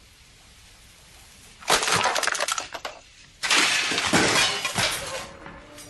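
Kitchen dishes and glassware crashing and breaking in two bouts of clatter, the first about two seconds in and a longer one starting about a second later.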